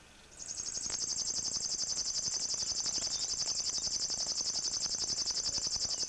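River warbler singing: one long, high, rhythmic reeling buzz of rapidly repeated notes, starting a moment in.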